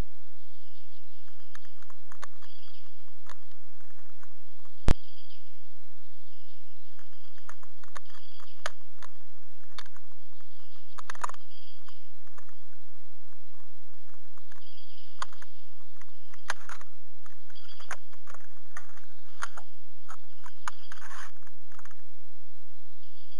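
Plastic packaging being handled: a clear plastic bag and a clear plastic blister box crinkle and rustle, with scattered small clicks and one sharp click about five seconds in, over a steady low hum.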